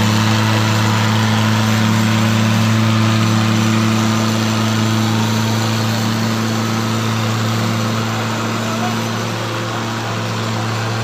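Two diesel tractors straining against each other in a tractor tug-of-war, their engines held at steady high revs under heavy load. The loud drone barely changes pitch and eases slightly near the end.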